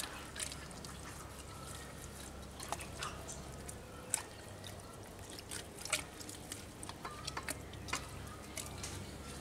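Irregular wet clicks and drips of hands rubbing a spice marinade into the belly cavity of a whole pig.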